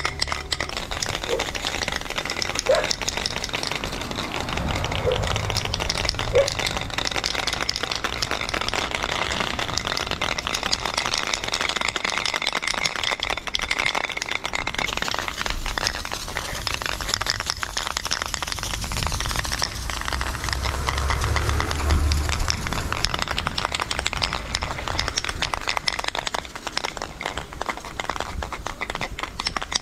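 Nearly empty aerosol spray paint cans hissing and sputtering as the last of their paint is forced out against a wall, with a dense, steady crackle. A low rumble swells briefly around five seconds in and again a little past twenty seconds in.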